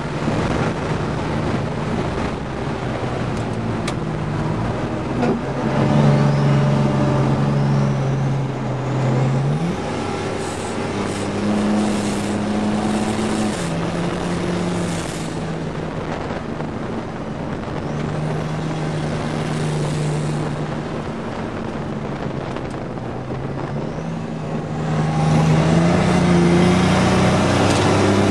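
GMC Syclone's turbocharged 4.3-litre V6 heard from inside the cab at track speed. The engine note holds steady for a few seconds at a time, then steps up or down in pitch as the truck works through the corners, over steady road and wind noise. It gets louder near the end.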